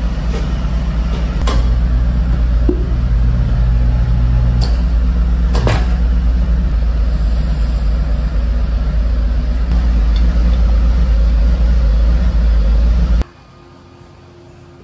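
A steady low machine hum in a tyre shop, with a few sharp clicks and knocks from the tyre and wheel being handled. The hum cuts off suddenly near the end.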